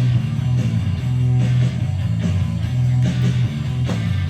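Rock song playing, with strummed electric guitar over a strong bass line and a steady beat.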